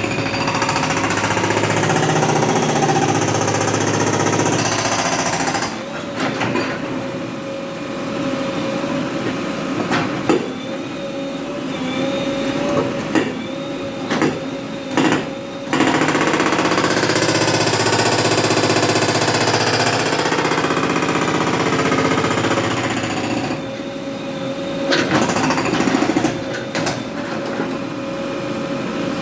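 JCB 3DX backhoe loader working a road surface. Its diesel engine runs steadily under load with two long stretches of dense rapid pounding, one at the start and one in the middle. Between them come quieter spells of separate knocks and clanks.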